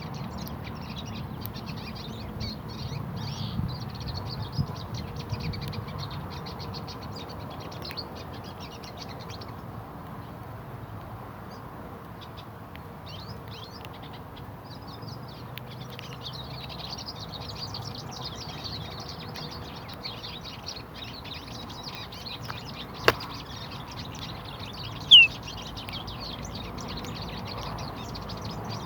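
A chorus of small birds chirping and twittering without a break, with a sharp click about 23 seconds in and a single loud, short falling call about two seconds later.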